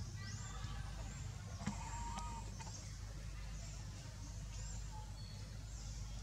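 Outdoor forest ambience: a short, high-pitched rising chirp repeating about once a second, with a few fainter calls, over a low steady rumble.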